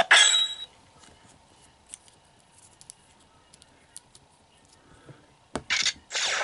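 App music from a phone's speaker cuts off at the start. Then small clicks and taps follow while a plastic toy Ranger key is held to the phone for scanning, and near the end comes a short loud noisy burst.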